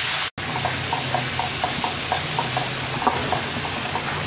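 A wooden spatula stirring onions and chillies in a kadai, scraping the pan in regular strokes about four a second, over the sizzle of the frying mix with water just added.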